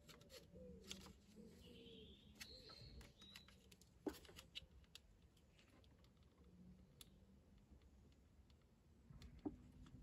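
Faint clicks and scrapes of a large flat-bladed screwdriver prying at a plastic ignition coil pack seated in the engine's cylinder head, with a sharper click about four seconds in and another near the end. A bird chirps faintly in the background early on.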